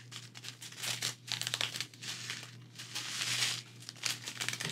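Crinkling of clear plastic drill packets being handled, in irregular bursts of crackle with louder stretches about a second in and again past three seconds.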